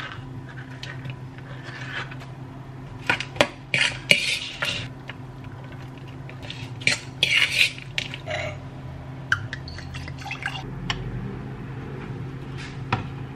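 Kitchen food-prep sounds: a metal spoon scraping and clinking against a salad bowl and a tin can as avocado and canned corn are spooned into a salad, in two clusters of scraping a few seconds in and around the middle, with scattered clinks later. A low steady hum runs underneath.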